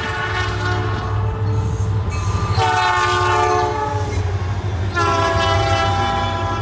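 Diesel freight locomotive's air horn sounding a chord of several notes in three blasts: one fading out about two seconds in, another starting about two and a half seconds in, and a third about five seconds in, over the steady low rumble of the train.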